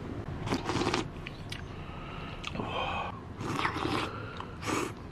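A person slurping hot gedatang (dough-drop soup) from a bowl in a series of short slurps, about four in all.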